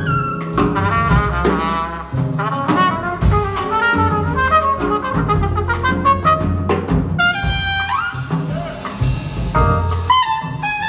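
Live big-band jazz: a trumpet solo over the band, with upright bass and drums playing behind it and a few notes scooping up in pitch.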